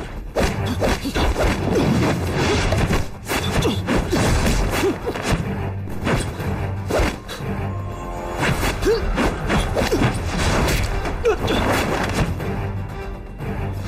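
Dramatic fight music with repeated punch and kick impacts and whooshes from a hand-to-hand kung fu bout.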